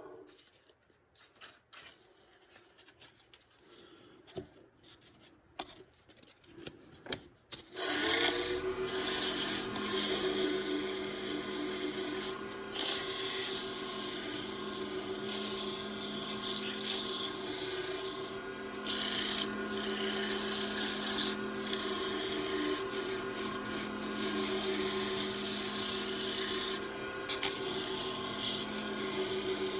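Woodturning lathe: a few small clicks at low level, then about eight seconds in the lathe motor starts and runs with a steady hum. A turning tool scrapes at the spinning wood, lifting off briefly a few times.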